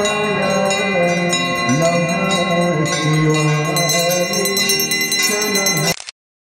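Devotional aarti hymn singing with bells ringing continuously throughout, the sound cutting off suddenly near the end.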